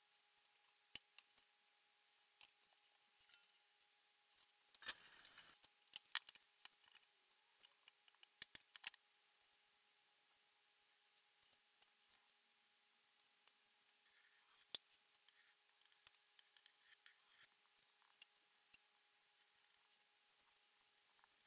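Faint scrapes and sharp clicks of a metal offset spatula spreading cream cheese frosting over a layer cake and knocking against the cake board, with a longer scrape about five seconds in, over a faint steady hum.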